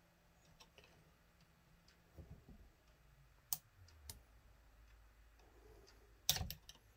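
Screwdriver working a small metal retaining clip on a Carter BBD carburetor's linkage, giving a few sharp clicks and scrapes. Near the end there is a louder clack as the clip comes loose and drops.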